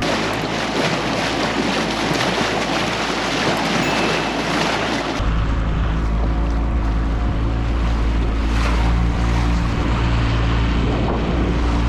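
A small skiff running at speed under its outboard motor, with the hull hissing and splashing through the water and wind buffeting the microphone. About five seconds in, the sound shifts to a steadier engine drone with heavy low wind rumble.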